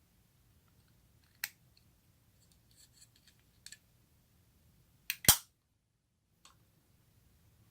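A few small clicks and crackles, then two sharp snaps a little after five seconds in, the second one the loudest.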